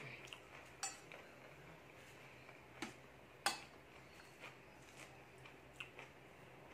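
Scattered light clinks and taps of fingers on a stainless steel plate as rice is mixed by hand. The sharpest clink comes about three and a half seconds in.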